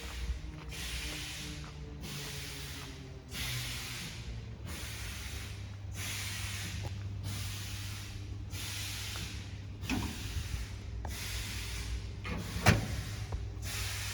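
High-speed can filling line running: regular short hisses of gas about one and a half times a second over a low machine hum. Two sharp knocks come near the end, the second the loudest.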